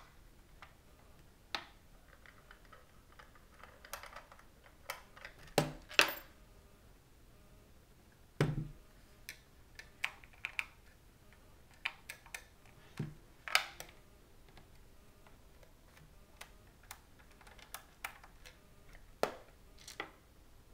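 Irregular clicks and knocks of a small Phillips screwdriver and the plastic shell of a Halo paintball hopper being handled while its screws are taken out, with a few heavier knocks among the lighter clicks.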